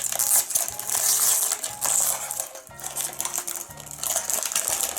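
Small plastic Lego minifigure pieces clicking and clattering as a mystery bag is opened and emptied, over background music with a bass line.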